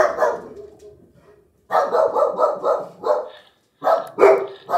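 Dog barking: a sharp bark at the start, a quick run of barks about two seconds in, and a few more near the end.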